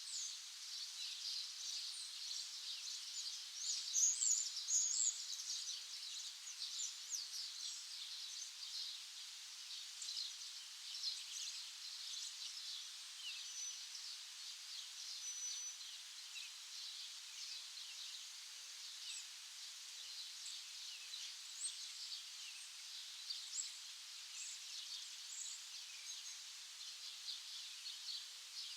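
A chorus of many small birds chirping continuously: dense, overlapping short high chirps, with a louder flurry about four seconds in.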